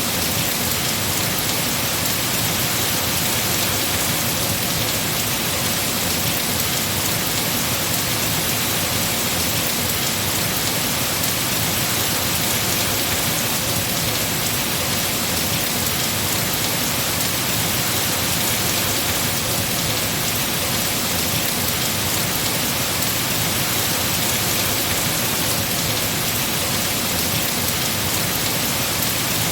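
Heavy rain falling on trees, a steady, even hiss with no changes.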